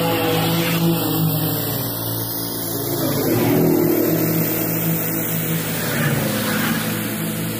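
Riding lawn mower engines running under load while cutting tall dry grass: a steady engine hum with a brief dip and rise in pitch about three seconds in.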